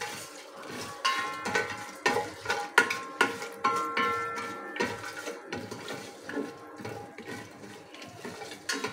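Spatula scraping and knocking against the inside of an aluminium pot while stirring whole spices in oil. The knocks come irregularly, and several leave a brief metallic ring from the pot.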